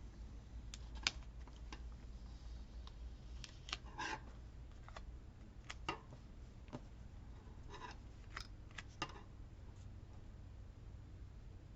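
Faint handling of paper stickers: scattered light clicks and taps with a few short rustles as a sticker is worked off its sheet and laid on a paper page.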